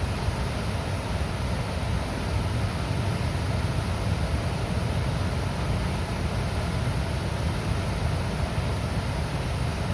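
Water released from a dam rushing and gurgling in a steady, deep roar that does not change.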